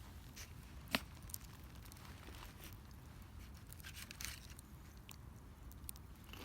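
Wood fire crackling: irregular sharp pops and snaps, the loudest about a second in, over a faint low rumble.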